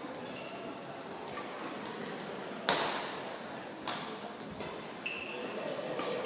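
Badminton rally: three sharp racket hits on the shuttlecock, the first and loudest a little under three seconds in, with short squeaks of shoes on the court near the start and again toward the end.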